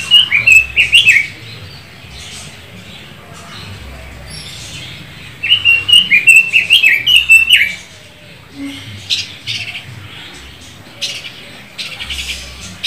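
Red-billed leiothrix (Pekin robin) singing: two loud phrases of quick warbled notes, one at the start and one a little past the middle, followed by scattered short chirps.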